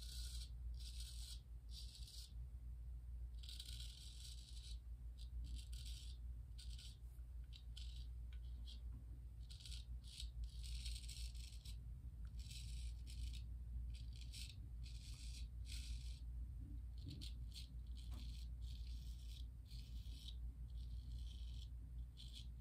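Gold Dollar 208 straight razor scraping through lathered stubble on the cheek, chin and neck: a series of short rasping strokes with pauses between, over a low steady hum.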